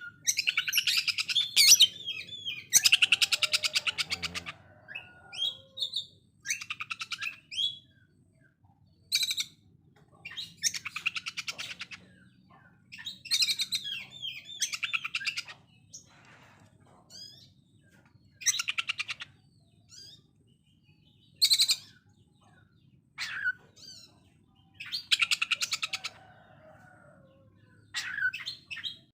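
Oriental magpie-robin (kacer) singing its harsh 'konslet' song: rapid-fire rattling phrases likened to a sewing machine, each about a second long, repeated with short pauses and mixed with quick whistled notes.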